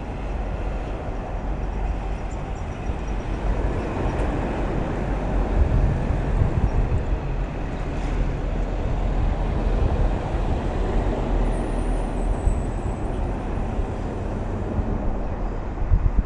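Steady road noise of vehicles travelling on a toll road: a continuous low rumble of tyres and engines.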